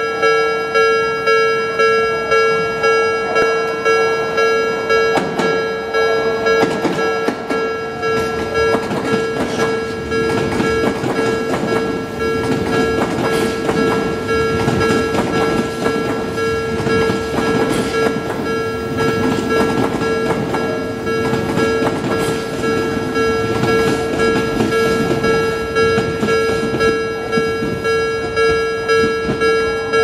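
Japanese level-crossing alarm ringing in steady repeated electronic clangs, about one and a half a second. From about five seconds in, an Odakyu 3000-series eight-car electric train rumbles through the crossing as it pulls away from the station.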